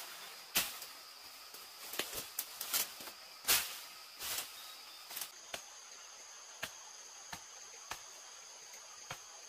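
Irregular knocks and taps, closer together and louder in the first half and sparser later, over a steady high insect trill that changes pitch about five seconds in.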